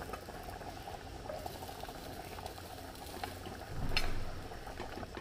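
Kanji bubbling in a clay pot just after hot oil tempered with spices has been poured in. A metal ladle stirs it, with a louder scrape and a clink against the pot about four seconds in.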